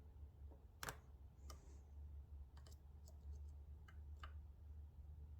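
Faint, scattered small metal clicks of a lock pick working the pin stacks and warding inside a padlock cylinder, with one sharper click about a second in, over a low steady hum.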